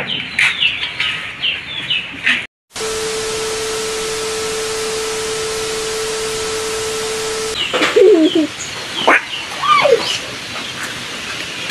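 Birds chirping, cut off by a TV-static sound effect: an even hiss with one steady tone for about five seconds. Then louder gliding bird calls and chirps.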